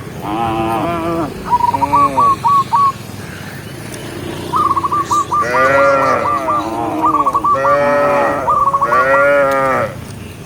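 Cattle mooing several times, loud and close, with a lull in the middle. Between the moos come quick runs of short, high chirping notes.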